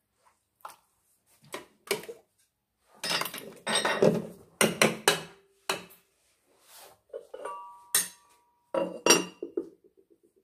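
Kitchenware clinking and knocking as harira is served: a metal ladle against a steel cooking pot and a ceramic soup tureen. Near the end the tureen's ceramic lid is set on with a clink that rings briefly.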